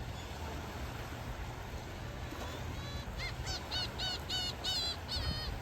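Ocean waves washing in a steady low rush. About halfway through, a bird starts calling in a quick series of about eight short cries, around three a second, carrying on to near the end.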